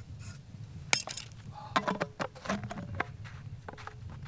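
Threaded PVC end cap being screwed onto a potato cannon's combustion chamber to seal in the hairspray fuel. There is a sharp click about a second in, then a run of plastic clicks, knocks and short squeaks.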